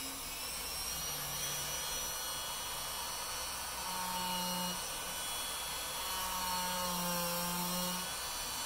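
Craftsman rotary tool running with a sanding drum bit, grinding a bevel into the edge of EVA foam. A steady high motor whine whose pitch dips a little and recovers as the bit is pressed into the foam.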